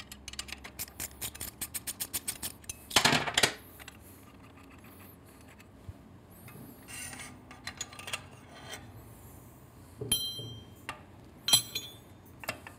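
Socket ratchet clicking in a quick, even run as an exhaust flange nut is loosened, then a short loud rattle about three seconds in. Scattered metal clinks and taps follow as the exhaust header pipe is handled, with a couple of ringing clinks near the end.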